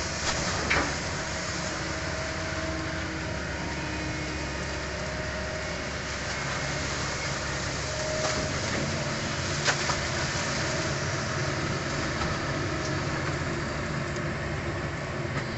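Diesel engine of a long-reach Kobelco excavator on a pontoon barge running steadily while it digs. Two sharp knocks come through, one about a second in and one near ten seconds.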